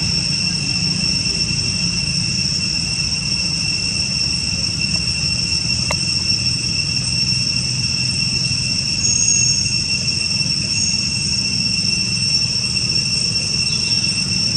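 Steady insect chorus, a continuous high-pitched trill that never breaks, over a low background rumble.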